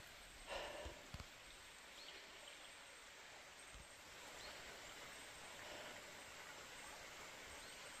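Near silence: quiet forest ambience, a faint even hiss, with a few soft footfalls in the first seconds.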